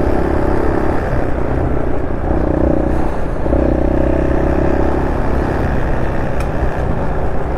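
Honda SL230's single-cylinder four-stroke engine pulling at part throttle on the move through an aftermarket muffler, its note swelling and easing with the throttle a few times. The carburettor has been re-jetted to suit the new muffler.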